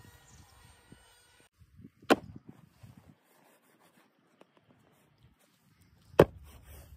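Two sharp knocks about four seconds apart, with faint rustling between: hands handling and knocking a cardboard toy box lying on dry grass.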